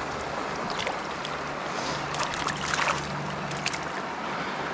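Shallow, rocky river flowing steadily, with a few short splashes and clicks between about one and three and a half seconds in.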